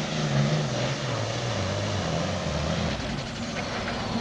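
Super stock diesel pulling tractor's engine coming off power at the end of a pull, its pitch falling steadily, with a high turbocharger whine winding down near the end.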